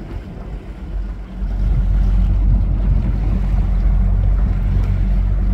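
Wind buffeting the phone's microphone on an open boat, a low, uneven rumble that grows louder about a second and a half in.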